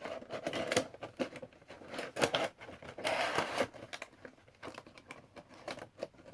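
Funko Pop cardboard window box and its plastic insert being handled: an irregular string of short taps, clicks and rustles, with a longer rustle a little past the middle.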